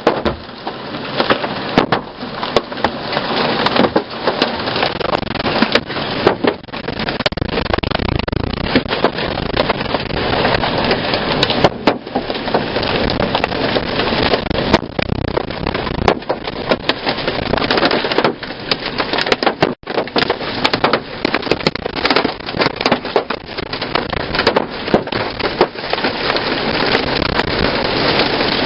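Heavy hail pelting the roof, body and windows of a Chevy Suburban, heard from inside the cabin: a dense, unbroken rattle of hard impacts over a steady rush of wind and rain.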